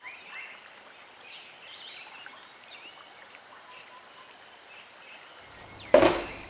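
Small birds chirping over a steady background hiss. Near the end a single loud thump that dies away within about half a second.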